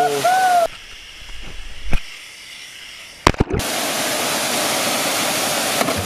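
Waterfall pouring into a plunge pool with a steady rush, opened by a person's shout. The rush drops out for about three seconds, and a few sharp impacts sound before it returns.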